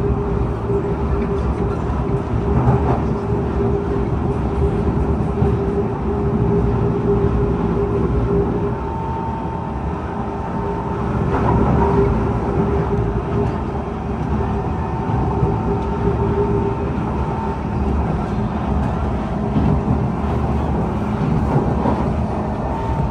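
Inside a Kawasaki C151 metro train running along the track at speed: a steady rumble of wheels on rail, with a humming tone that fades in and out.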